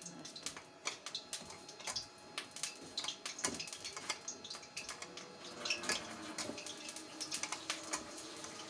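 A chicken tender being rolled and pressed by hand in dry flour in a stainless steel bowl: soft patting and rustling with irregular light clicks.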